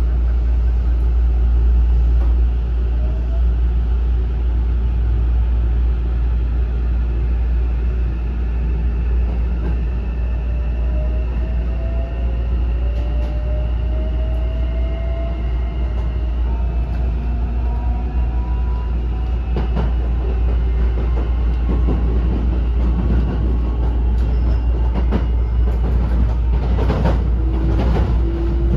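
Interior running sound of a Hankyu 9000 series electric train with a Toshiba IGBT VVVF inverter: the inverter and traction motor whine climbs slowly in pitch as the train picks up speed, over a steady low rumble. In the last several seconds, wheel clacks over the rails join in.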